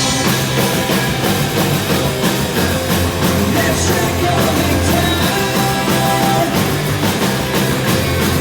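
Live punk-rock band playing at full volume: distorted electric guitars, bass and drums, with some singing.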